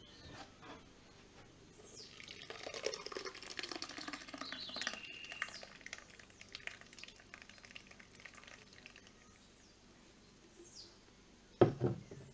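Thick blended watermelon pulp pouring from a blender jug through a cloth juice bag into a glass jar, a wet splashing pour of about three seconds whose pitch falls as it goes. Near the end, a loud knock as the emptied plastic blender jug is set down on the table; faint bird chirps behind.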